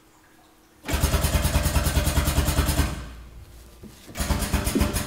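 Pneumatic-hydraulic drum tipper's air-driven pump running with a rapid, even pulsing as the tipped drum is rotated back upright. It starts about a second in, dies away about three seconds in, and starts again about four seconds in.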